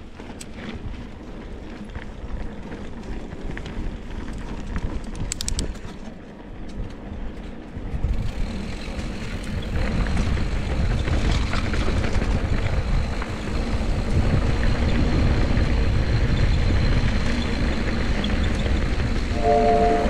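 Mountain bike riding along a dirt farm trail: rattling and clicking from the bike over the rough ground, then a louder rushing rumble of wind on the microphone from about eight seconds in.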